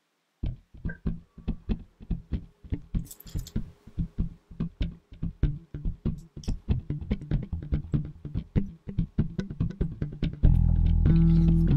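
Background music: a run of short plucked notes, about four a second, with fuller, steadier music coming in near the end.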